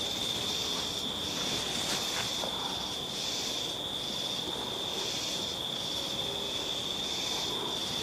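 Insects chirping: a steady high trill with a higher pulsing chorus that beats a little more than once a second.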